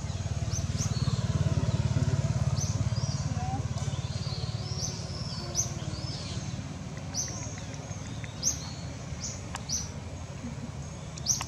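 Outdoor ambience: birds give short, high chirps about once a second over a steady low rumble. The rumble is loudest in the first few seconds and then eases.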